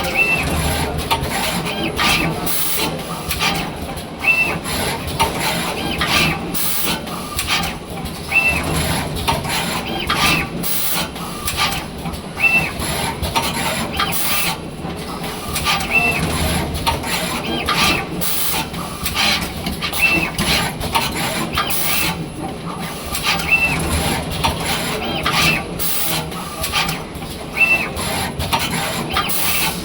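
Automatic wire soldering machine running through its cycles: a steady mechanical whir from its moving parts, punctuated by short bursts of hiss and a short high chirp that recurs every couple of seconds.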